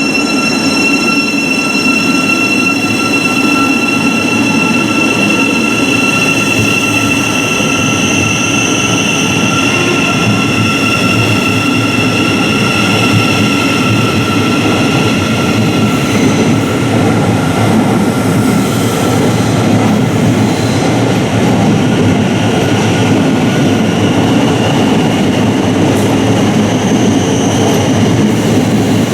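Thameslink Class 700 Desiro City electric train running at the platform, a loud steady rumble of wheels and motors. Several high electrical whine tones are strongest in the first ten seconds and then fade.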